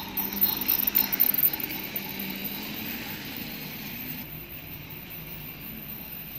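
Toy train running on plastic track, its small motor whirring and its wheels clattering. The rattle is loudest and most uneven in the first second or so as the locomotive passes close by, then settles into a steadier running sound.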